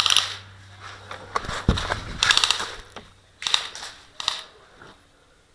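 Electric airsoft gun firing several short bursts of rapid shots, heard as quick clicking rattles, with a low thump about a second and a half in.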